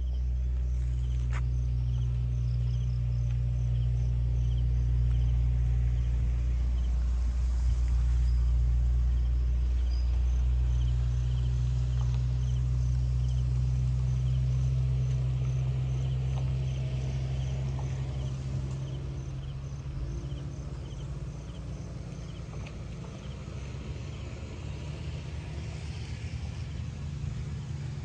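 Wind buffeting the microphone with a low rumble that eases off after about eighteen seconds, over insects chirping in a steady, regular pulse.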